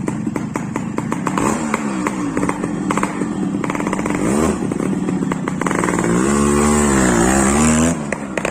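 Yamaha RX135's single-cylinder two-stroke engine running with a rapid crackling idle, then blipped several times, its pitch rising and falling, loudest near the end before dropping back.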